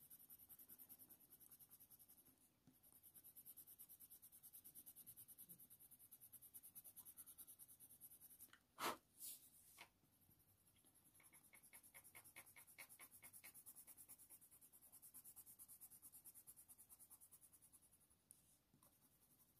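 Faint, rapid back-and-forth strokes of a Faber-Castell Polychromos coloured pencil scratching on hot-press watercolour paper, laying down short fur strokes in runs with brief pauses. A single light tap about nine seconds in.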